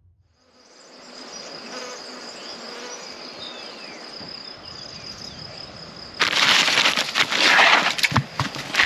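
Outdoor insects buzzing and chirping steadily, with a thin high-pitched chirring tone and a few faint chirps. About six seconds in a much louder crackling, rustling noise cuts in, like a plastic tarp being handled.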